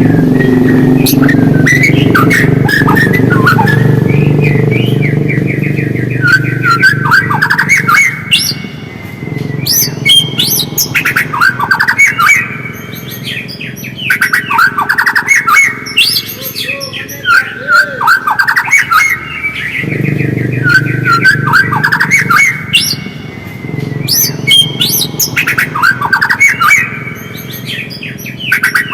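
White-rumped shama singing: repeated phrases of rapid trills and sweeping whistled notes, one every two to three seconds. A steady low hum runs underneath for the first eight seconds or so and again from about two-thirds of the way through.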